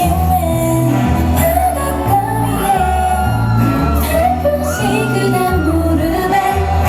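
A K-pop song played loudly over a stage sound system, with female singing over a heavy, stepping bass line and shouts mixed in.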